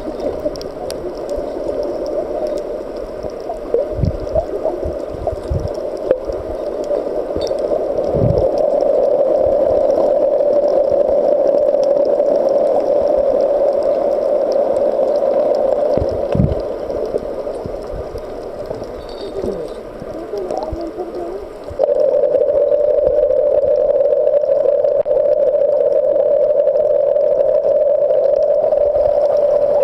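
Underwater ambience in the Red Sea: a steady, fairly loud hum with a few dull low thumps. The hum steps up suddenly about two-thirds of the way in.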